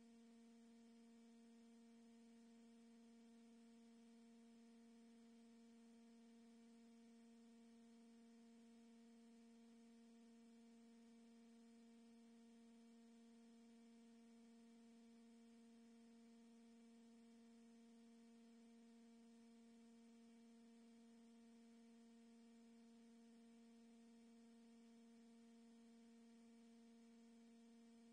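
Near silence with a faint, steady electronic hum: one unchanging tone with overtones over low hiss.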